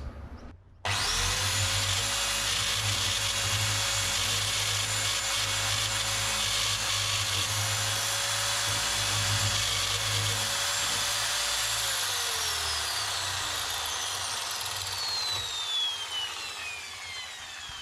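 Power drill with a masonry bit drilling into a brick wall. The motor starts abruptly about a second in and runs at a steady whine over a grinding noise. After about eleven seconds it is released and the whine falls away as the motor spins down.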